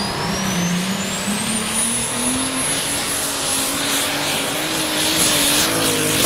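Pulling tractor's engine running hard under full load as it drags the weight sled, its pitch climbing through the first couple of seconds and then holding high, with a thin high whine rising alongside it.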